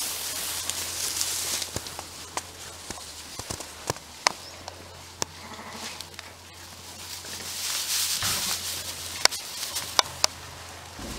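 Sheep bleating over a rustle of straw bedding, with scattered sharp clicks and ticks.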